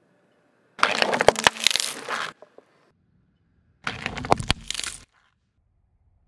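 Car tyre rolling over sealed plastic cups on asphalt, crushing them: two bursts of crackling and sharp cracks as the plastic splits, the first lasting about a second and a half, the second about a second, starting about four seconds in.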